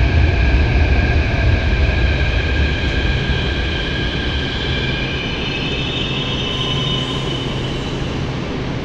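São Paulo Metro Line 5-Lilac train pulling into an underground station platform and slowing. A heavy low rumble eases off, while several high whining tones grow stronger in the second half.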